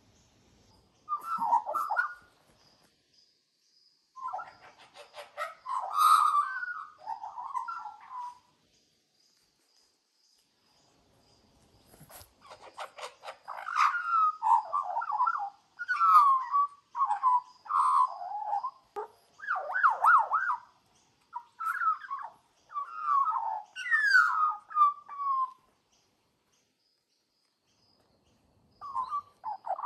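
Australian magpie warbling a song of quick rising and falling notes in three phrases: a short one about a second in, another from about four to eight seconds, and a long run from about twelve to twenty-five seconds.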